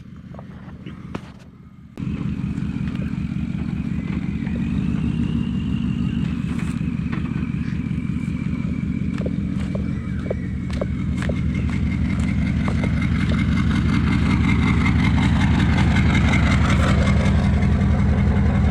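A vehicle engine, most likely the couple's LandCruiser, comes in suddenly about two seconds in after a few light clicks. It then runs steadily with a fast, even low pulsing and a faint high whine, getting slightly louder near the end.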